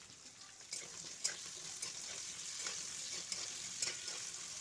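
Diced onions sizzling in hot oil in a metal kadai, with a flat spatula scraping and tapping the pan now and then as they are stirred.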